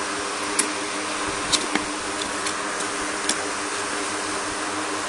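Hands opening a taped cardboard box: a few short, sharp cardboard clicks and snaps, four of them in the first three and a half seconds, over a steady background hum.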